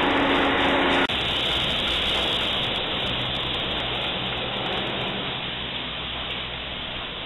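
Chairlift terminal machinery running: a steady mechanical hum with a few held whining tones that cut off abruptly about a second in, then an even rushing noise that slowly fades.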